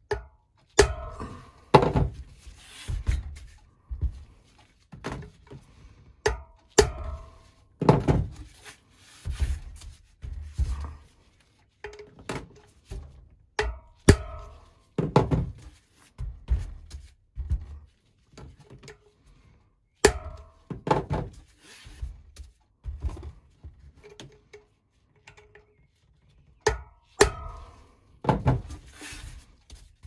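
A hammer striking a flat chisel set in the notches of a screw-on BMX freewheel, knocking it round to unwind it from the hub. The blows come in short groups with pauses between, some with a brief metallic ring.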